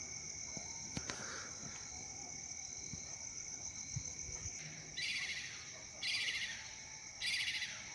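Crickets at night: a steady high-pitched trill, with three louder bursts of rapid chirping about a second apart in the last few seconds.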